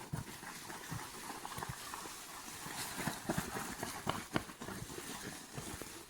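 Footsteps walking on a wet woodland trail: irregular soft knocks and scuffs over a steady background hiss.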